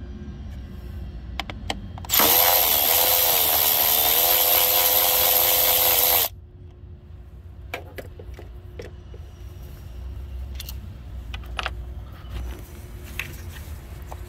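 Cordless power tool spinning a socket on an extension for about four seconds to run out the 8 mm bolt holding an ignition coil, its motor whine holding one steady pitch and cutting off suddenly. Light clicks and knocks of parts being handled follow.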